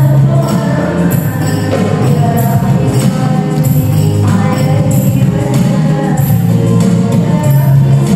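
Qasidah music played live: frame drums with jingles beat a steady rhythm over a keyboard melody.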